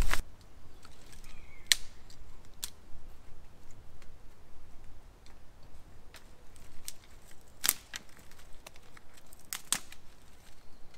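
A small campfire of dry sticks being tended, with wood crackling and snapping: a few separate sharp cracks, the loudest two late on. A brief rustle of branches dragged over leaf litter cuts off right at the start.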